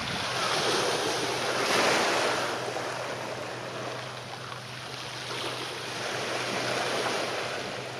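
Harbour water washing and wind on the microphone, a steady wash that swells twice, over a faint steady low hum.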